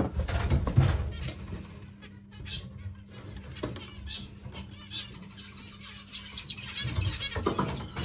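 Diamond dove's wings flapping in a wire cage, in bursts during the first second and a half and again near the end, with birds chirping in between.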